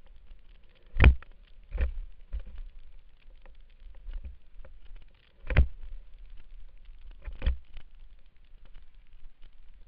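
Mountain bike riding down a leaf-covered dirt trail: tyres rolling over dry leaves and the bike rattling over rough ground, with several sharp knocks as it hits bumps, the loudest about a second in and at about five and a half seconds.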